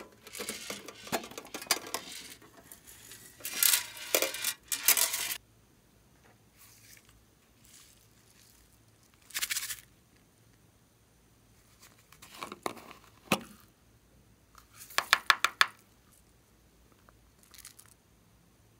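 Hands kneading and stretching glossy slime mixed with small beads, giving many quick small clicks and pops. The clicks run densely for about the first five seconds, then come in separate short bursts a few seconds apart.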